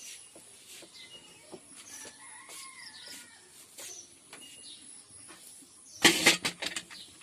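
Domestic chickens in the background, with one drawn-out call that rises and falls about two seconds in. About six seconds in comes a sudden loud clatter lasting under a second.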